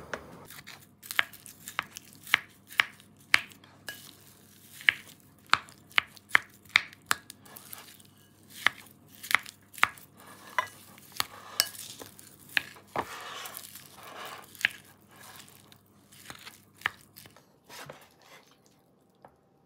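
Wooden spoon stirring natto, avocado and shredded seaweed in a white ceramic bowl, with repeated sharp taps of the spoon against the bowl, about one or two a second, and mixing noise between them. The stirring stops shortly before the end.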